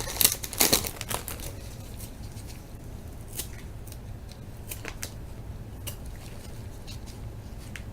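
A foil pack of 1998 Bowman Chrome football cards being opened: a quick run of snipping and crinkling in the first second. After that comes a faint steady background with a few single clicks as the cards are handled.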